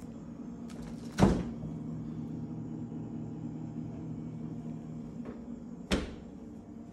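Two sharp bangs, like doors shutting: a loud one about a second in, just after a brief hiss, and a second one near the end. A steady low hum runs underneath.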